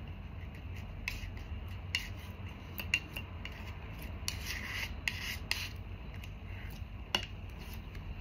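Oil paint being mixed on a palette: scattered short scrapes and light clicks, with a longer scraping stretch about halfway through, over a low steady hum.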